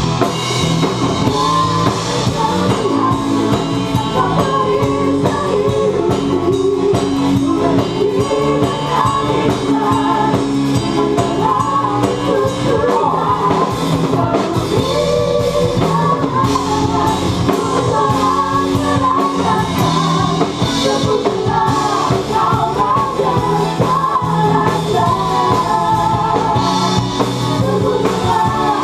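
Live gospel worship band playing: several women singing together over keyboards, bass, guitars and a drum kit, at an even, steady level throughout.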